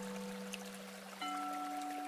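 Slow background music of long held notes, moving to a new chord a little past a second in, over a faint even hiss.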